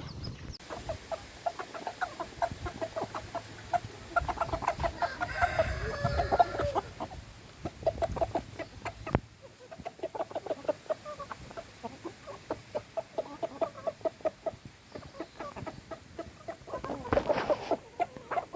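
Chickens, mostly hens, clucking in trains of short repeated calls. The calling grows busier and louder a few seconds in, and again in a short burst near the end.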